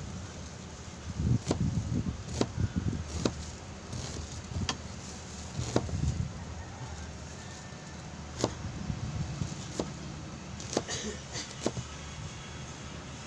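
A knife knocking on a cutting board as ingredients are sliced by hand: about ten sharp taps at uneven spacing, over a low rumble of wind on the microphone.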